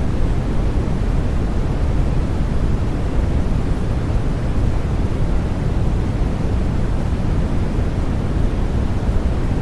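Steady sleep noise for babies, weighted to the low end so it sounds deep and rumbling rather than hissy, with no change in level or character.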